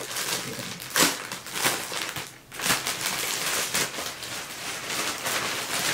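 Clear plastic poly bag crinkling and crackling as it is handled and pulled open, with a louder rustle about a second in and a brief lull near the middle.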